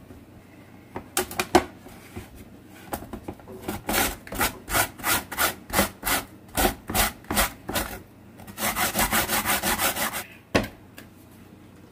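Raw potato being grated on a plastic box grater: rhythmic rasping strokes about two a second, then a quicker run of short strokes, with a single knock near the end.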